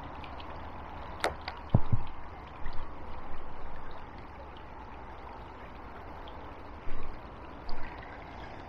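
Handling noise from a spinning reel and rod held close by: a sharp click about a second in, dull knocks just before two seconds and twice near the end. Under it runs a steady hush of flowing river water.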